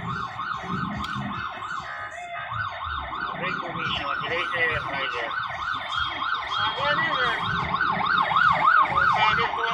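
Electronic siren sounding a fast yelp, its pitch sweeping up and down about three to four times a second, heard from inside a car's cabin.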